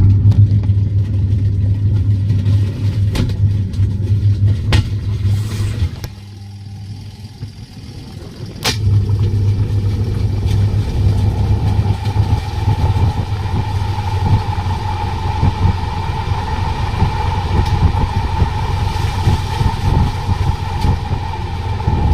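Washing machine spin-dryer motor running with a loud, steady low hum. The hum drops away at about six seconds and comes back strongly near nine, with a few sharp clicks. A steady higher whine joins it about halfway through.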